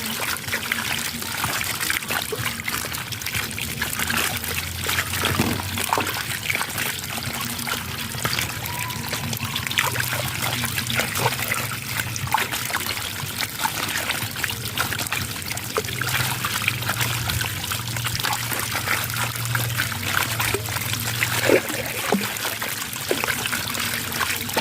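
Running water splashing and trickling steadily, a continuous rush with many small splashes.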